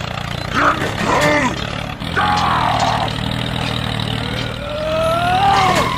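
Steady low engine-like running of a toy mini tractor driving through sand. Several short gliding tones sound over it, and a long one rises in pitch near the end.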